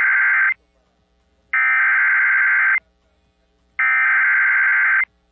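Emergency Alert System SAME header: the end of one burst of buzzing digital data tones, then two more identical bursts, each about 1.3 s long with about a second's gap between them. It is the coded header that opens a broadcast flash flood warning.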